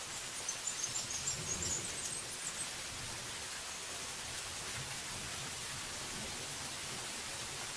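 Steady heavy rain falling on forest foliage, an even hiss. A short run of high chirps comes through in the first couple of seconds.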